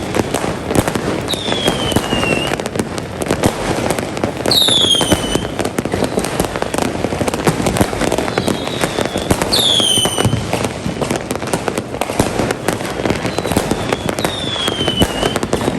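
Many fireworks going off without pause: a dense crackle of bangs and pops, with a high whistle that falls in pitch heard four times.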